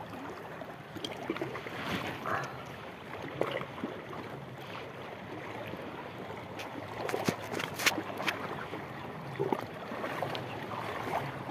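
Shallow seawater sloshing and lapping around rocks, with a few sharp clicks about seven to eight seconds in.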